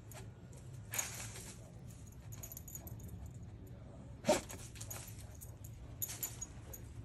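A dog sniffing and snorting with its nose pushed into a gap in brick edging: a few short, sharp sniffs, about a second in, the loudest at about four seconds, and a couple more near six seconds.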